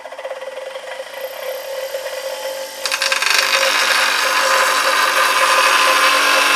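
Bench grinder running, then about three seconds in a round nose scraper is pressed flat against the spinning wheel on the jig's platform: a loud, steady grinding hiss of steel on the wheel as the scraper's edge is sharpened.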